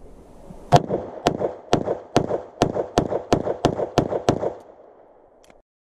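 Semi-automatic pistol fired ten times in quick succession, starting about a second in at roughly two to three shots a second. Each shot is sharp, with a short echo after it.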